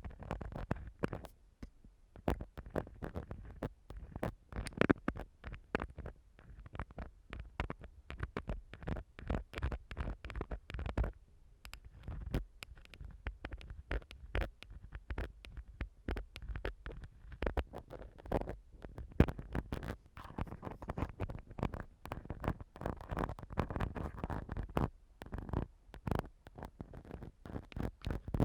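Ear-cleaning tool scraping and rubbing against an ASMR microphone's ear, close-miked, in a dense, irregular run of scratchy clicks and rustles with short pauses between strokes.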